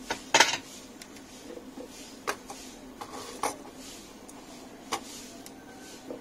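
Light clicks and knocks of a circuit board and soldering tools being handled on a workbench during soldering, about six in all, the loudest about half a second in, over a steady low hum.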